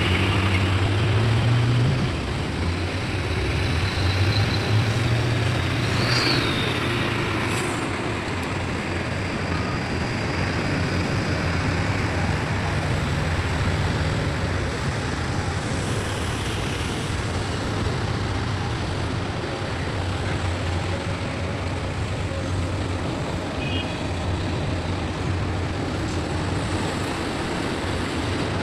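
A heavy vehicle's diesel engine running steadily with a low hum, a little louder for the first couple of seconds.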